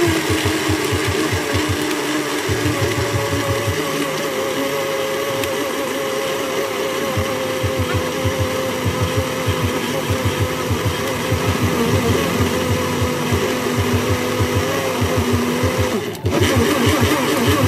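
Countertop blender running steadily as it blends a fruit shake, with a wavering motor whine. It switches off near the end.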